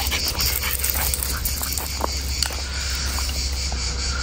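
Boston terrier running across gravel, with light scattered crunches and knocks over a steady low rumble.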